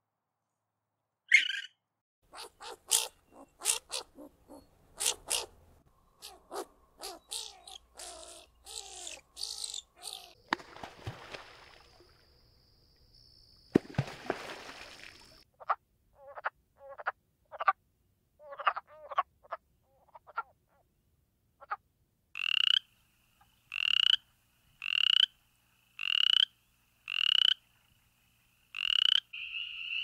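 A sequence of night animal calls. Common raccoon chittering comes first, as a run of short clicky calls. Then wood frogs quack in short duck-like clucks, coming in spaced bunches. Near the end, spring peepers give single rising peeps about once a second.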